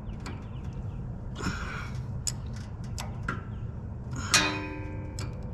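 Steel combination wrench clicking and clinking against a tight oil drain plug on a Kohler engine, the plug still at factory torque. A sharper metal clink about four seconds in rings on briefly. A steady low hum runs underneath.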